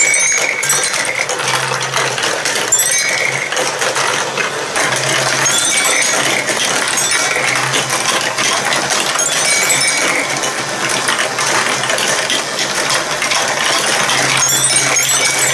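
Plastic balls and marbles rolling and clattering through a plastic block marble run: a steady stream of small clicks and knocks, with the motorised paddle conveyor lift running underneath.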